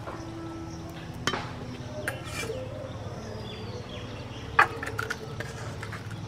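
Steel spatula scraping and knocking against a steel karai as thick dal is stirred and then scraped out into a steel pot, with a few sharp clanks, the loudest about four and a half seconds in.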